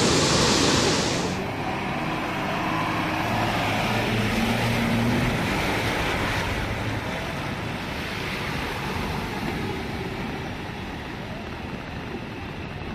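Steady noise of flowing floodwater with a motor vehicle running. A loud rushing hiss cuts off abruptly about a second in, leaving a lower rumble with a faint engine hum.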